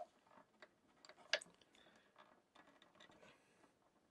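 Small plastic split bushings being pressed into a speaker's plastic case around its cable: a faint click at the start and a sharper click just over a second in, otherwise near silence.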